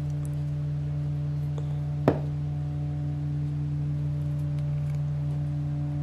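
Steady low electrical hum with a few faint higher tones, and one sharp click of small pliers about two seconds in.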